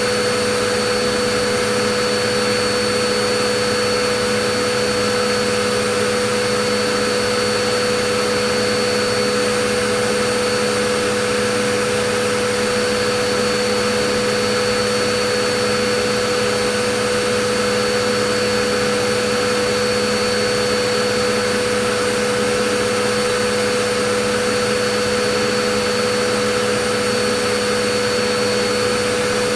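Vacuum cleaner running steadily, a constant whooshing drone with a fixed motor whine and no change in speed.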